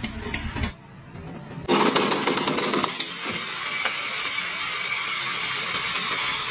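A power tool starts up less than two seconds in and keeps running, a rough grinding noise under a thin, steady high whine.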